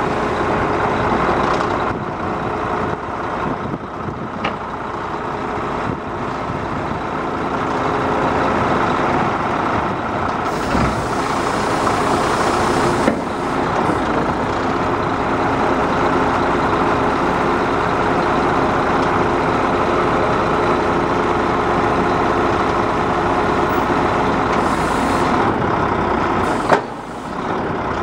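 Volvo FH12's 12-litre six-cylinder diesel running steadily under load, powering the Joab hooklift's hydraulics as a roll-off container is pulled up onto the truck. A hiss comes in about ten seconds in, and a sharp knock near the end is followed by a brief dip in the sound.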